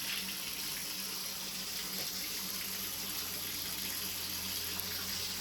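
Water running steadily from a bathroom faucet into a drain, with a steady low hum beneath. It is a flow test of a drain that has just been snaked clear of a clog.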